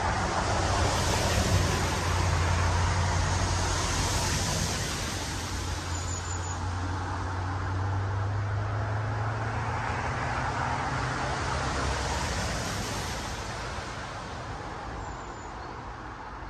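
Road traffic going by: vehicles swelling up and fading away, with a low engine hum under the tyre noise.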